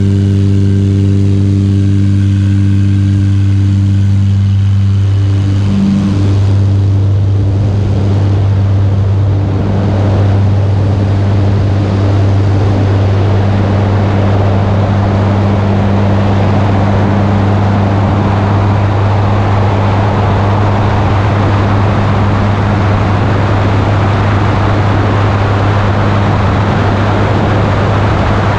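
Zenith STOL 750 light aircraft's engine and propeller running at a steady drone through its takeoff and climb-out. A rushing wind noise on the wing-mounted camera builds from about six seconds in as the plane gathers speed and lifts off.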